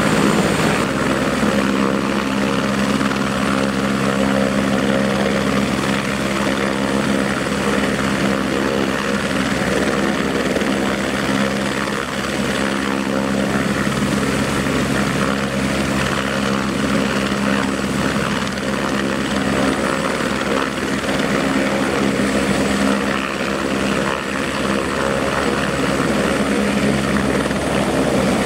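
Aerospatiale AS350B-1 Ecureuil (AStar) helicopter running on the ground with its main rotor turning: a steady engine and rotor sound with several fixed tones over a broad rushing noise.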